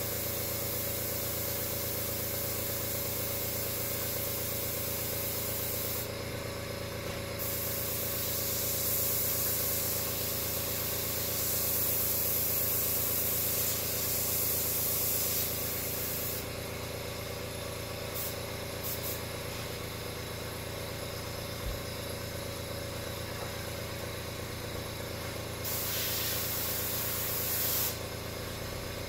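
An airbrush hissing in long spells as its trigger is pulled and let go, stopping briefly about six seconds in, with a quieter stretch broken by two short puffs, then one more spell near the end. Under it runs the steady hum of an air compressor.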